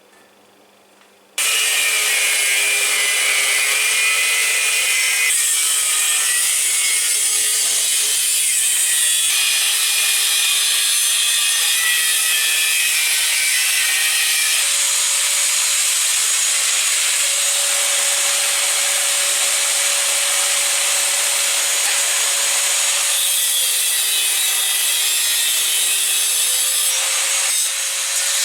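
A handheld power tool starts about a second in and runs continuously, working material with a hissing, rasping noise. Its motor note drops under load and rises when the load eases.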